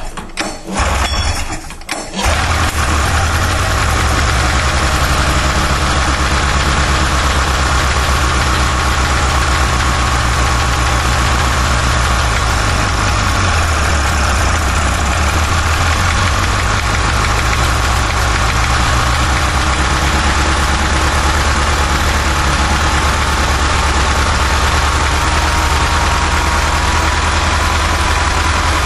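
1988 Polaris Indy Trail's 488 two-stroke twin engine sputtering, catching about two seconds in, then running steadily at a fast idle of around 3,000 RPM. It is a cold first start after months in storage with the choke (full enrichment) on and the idle screws set two turns in.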